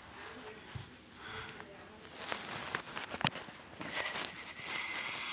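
Plush toy snakes handled close to the microphone: fabric rubbing and rustling, louder in the second half, with a sharp click about three seconds in.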